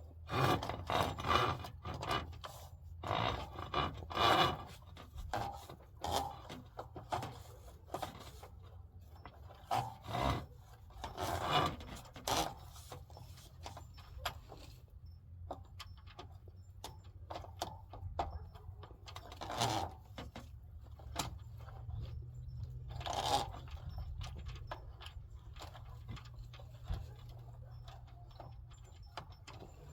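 Irregular scraping, rubbing and knocking from plumbing work on a drain pipe, busiest in the first few seconds and in short spells later, over a steady low hum.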